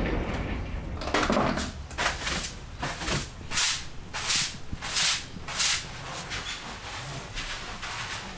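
A cloth being wiped back and forth over tatami mats, a run of regular swishing strokes about one and a half a second that fade out in the second half. A louder rustle comes about a second in.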